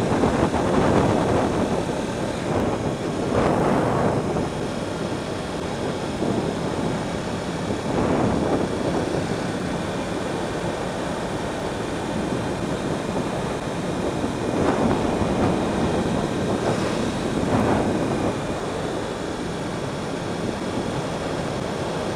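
Wind rushing over a helmet-mounted microphone on a moving motorcycle, a steady noisy roar with the bike's running and tyre noise underneath, swelling louder several times.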